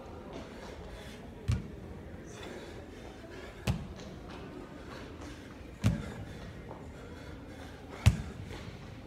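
A dumbbell thumping down on a rubber gym floor four times, about two seconds apart, as it touches the floor at the bottom of each single-arm dumbbell snatch; the last thump is the loudest.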